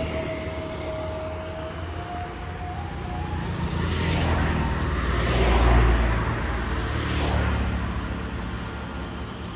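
Road traffic going past close by, over a steady low rumble. One vehicle swells to its loudest about six seconds in, then fades away.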